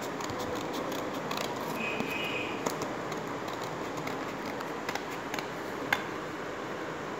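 Scissors snipping through thin cardboard: a string of faint, irregular clicks over a steady background hiss.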